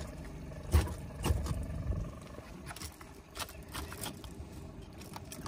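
A handful of short knocks and thumps over a low, uneven rumble, the clearest knocks about a second in.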